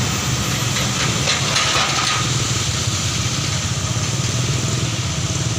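Heavy truck engine running steadily under a constant hiss, with the hiss swelling louder for about a second from about a second in.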